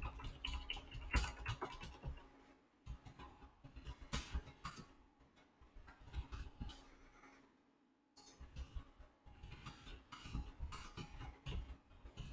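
Typing on a computer keyboard: runs of quick, light key clicks broken by several short pauses.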